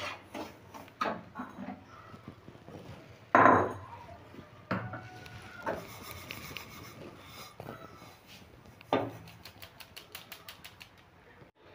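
Spatula scraping and knocking against a nonstick wok as dry-roasted semolina is stirred and then scraped out of the pan into a plate. Two louder knocks come about three seconds in and about nine seconds in, and a run of quick light taps near the end.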